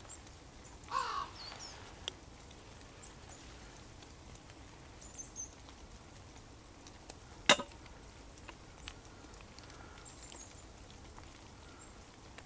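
A single short harsh caw from a crow-like bird about a second in, then faint high chirps of small birds. The loudest event is one sharp click near the middle.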